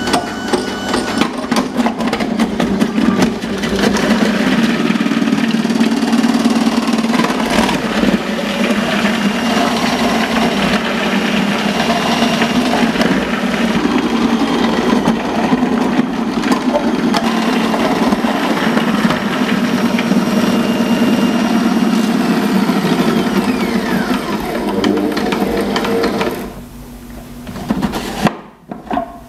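Bosch MUM 5 kitchen machine running its dicing attachment with the fine knife, cutting carrots into fine cubes: a steady motor hum with a dense rattle of carrot pieces being cut. The machine stops about 26 seconds in.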